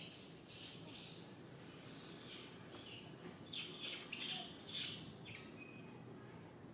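Macaque monkey giving a run of short, high-pitched shrieks, about one or two a second, which stop about five seconds in.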